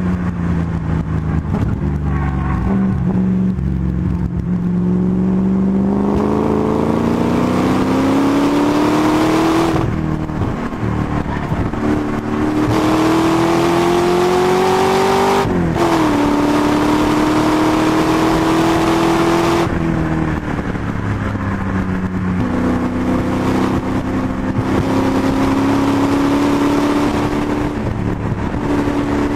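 Rover V8 engine of a 330 bhp MGB track car pulling hard through the gears: the pitch climbs, drops sharply at an upshift about ten seconds in, climbs again, and drops at a second upshift. The engine falls back as the driver lifts off about twenty seconds in, then runs at a steadier pitch, over a haze of wind and road noise.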